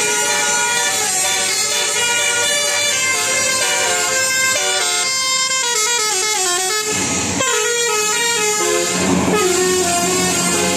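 Indonesian 'telolet' musical air horn on a bus, playing a melody of several notes sounding at once. About halfway through, a run of notes steps downward.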